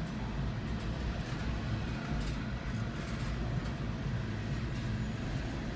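Freight train of open-top coal hopper cars rolling past close by: a steady low rumble of wheels on the rails, with faint light clicks now and then.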